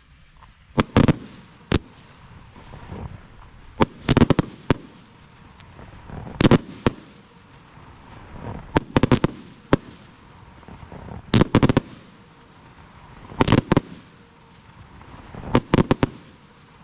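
Consumer firework cake ('color moving firefly with blue pistil') firing its shots: clusters of two or three sharp bangs about every two seconds, with a faint hiss in between.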